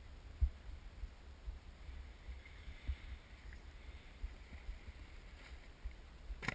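Steady low rumble with irregular thumps from wind and snowboard movement over snow, picked up through a GoPro housing, with a sharp knock near the end.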